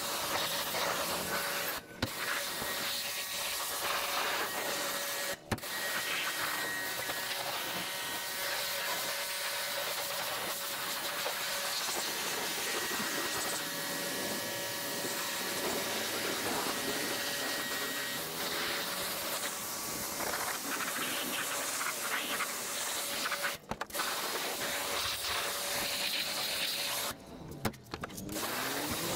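Pressure washer spraying water, a steady hiss that cuts out briefly a few times.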